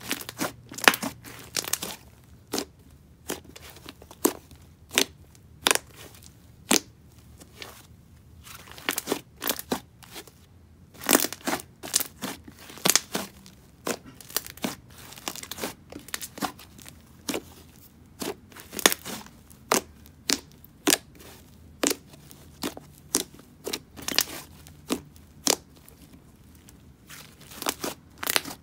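Thick, creamy clay slime being squished, folded and pressed by hand, giving irregular short, sharp crackles and pops, about one or two a second.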